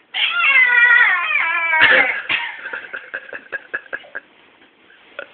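A person's drawn-out, wavering wail with gliding pitch, about two seconds long, ending in a sharp outburst, followed by a run of faint short clicks.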